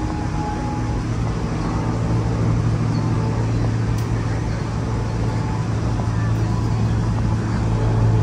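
A steady low machine hum, getting louder about a second in, over outdoor city traffic background.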